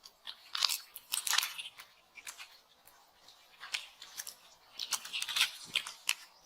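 Irregular crisp clicks and crunches, a dozen or so scattered short snaps with small gaps between them.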